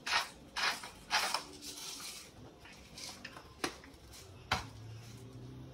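Salt being shaken from a container onto raw ground turkey in several short bursts, followed by a few sharp clicks of seasoning containers handled on the counter.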